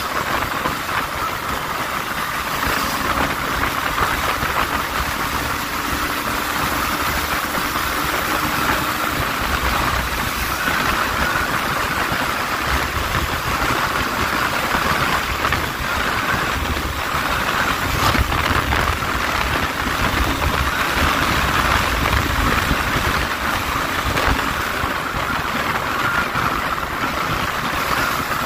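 Yamaha Lander 250's single-cylinder engine running at steady cruising speed, heard from on board the moving motorcycle under a continuous rush of wind and road noise.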